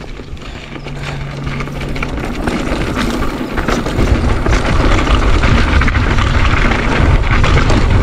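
Wind rushing over the microphone and mountain bike tyres rolling over dirt and loose gravel, growing louder as the bike picks up speed downhill.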